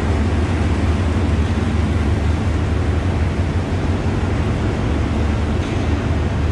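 Steady low drone of a diesel train idling at a station platform, with an even rushing noise over it and no change in level.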